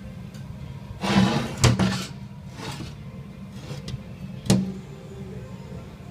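BMW E46 320d diesel engine running steadily at idle, with a clattering burst about a second in and a sharp knock about four and a half seconds in.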